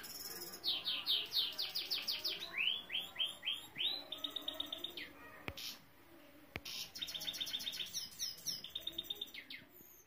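Saira canary singing a fast song of repeated trilled notes and rising whistles, with a short pause about halfway through.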